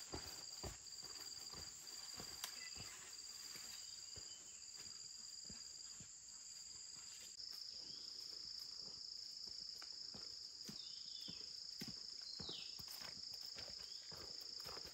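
Forest insects shrilling in a steady high-pitched chorus, whose tone shifts about halfway through. Faint irregular soft taps and steps sound underneath, and a couple of short falling chirps come near the end.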